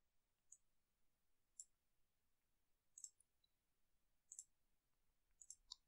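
Faint clicks of a computer mouse, about half a dozen spaced a second or so apart, with a few close together near the end, against near silence.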